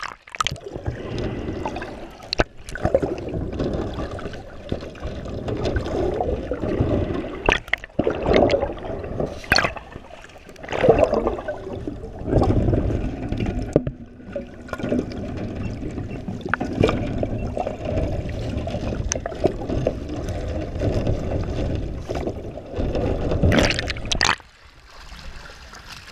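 Muffled underwater rumble and gurgling of water moving around an action camera held below the surface, with scattered sharp knocks. The sound drops away sharply about two seconds before the end.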